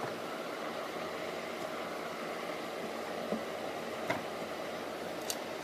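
A steady hiss of background noise. Over it come a few light knocks, about three and four seconds in, and a faint high clink near the end, as a glass pane is handled and set into a wooden cabinet frame.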